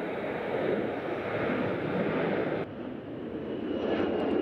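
Airbus A319 jet engines at takeoff thrust as the airliner lifts off and climbs, a steady rushing noise mixed with wind on the microphone. The sound changes abruptly a little past halfway, and a faint high whine comes in near the end.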